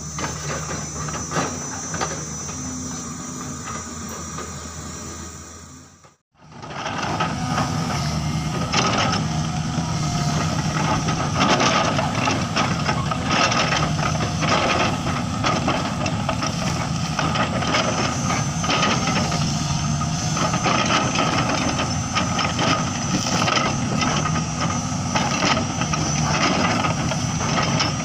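Caterpillar 320 excavator with a log grapple, its diesel engine and hydraulics running steadily while the grapple strips bark from logs, giving repeated cracks, knocks and scrapes. A short gap about six seconds in; after it the machine is heard close up and louder.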